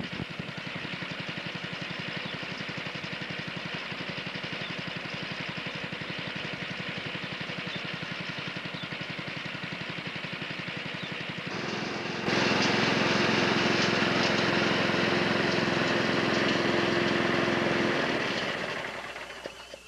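Small lawn mower engine running steadily with a fast, even pulse. About eleven seconds in it grows louder and a steady whine joins in; over the last two seconds it fades away.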